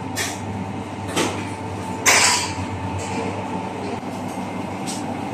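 Shawarma kitchen noise: a steady machine hum, with a few short metal scrapes and clatters of a utensil against the flat-top griddle, the loudest about two seconds in.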